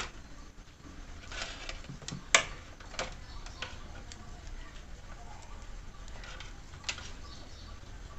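Scattered light clicks and taps as stripped wire ends are handled and touched to the terminals of an opened mixer-grinder motor in a series-lamp test. The sharpest click comes a little over two seconds in, over a faint steady low hum.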